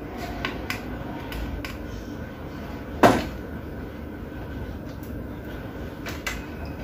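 Scattered light clicks and taps from multimeter probes and a small circuit board with tactile push-button switches being handled, with one louder knock about three seconds in.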